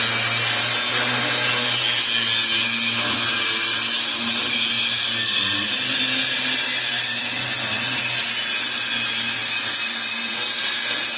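Angle grinder cutting into a seized steel axle U-bolt: one steady, unbroken grinding hiss over the low hum of the motor.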